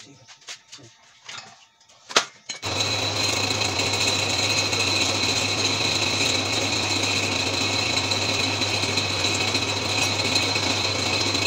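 Light metal clanks and a sharp click as steel parts of a band saw mill frame are handled, then, about two and a half seconds in, a steady electric motor sound with a low hum and a high whine starts abruptly and runs on evenly: a power tool or workshop machine running.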